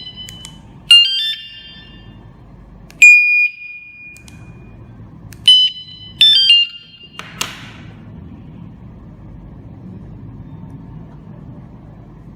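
The KS-SF22R vehicle alarm set gives a series of loud, short, high electronic beeps, about five in the first seven seconds. The second beep is longer and fades out, and two of them come close together. A brief rustle-like noise comes just after, then only a low hum.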